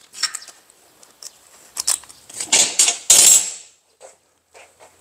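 Metal spanners and loose bolts clinking and rattling as they are handled: scattered sharp metallic clicks, with the busiest clatter about two to three and a half seconds in.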